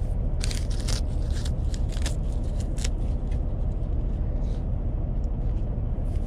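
Steady low rumble of a semi-truck's diesel engine idling, heard inside the cab, with a few light clicks and rustles in the first three seconds.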